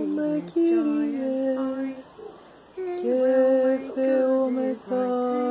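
Women singing a slow hymn tune, holding long notes that step from pitch to pitch, with a short break about two seconds in.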